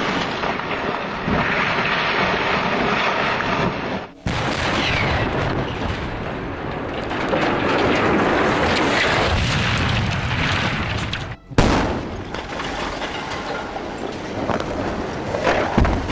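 Explosive demolitions one after another: demolition charges going off and the long noise of collapsing structures, brick chimneys and a steel water tower among them. A sharp new blast breaks in about four seconds in and again about eleven and a half seconds in, with more sharp bangs near the end.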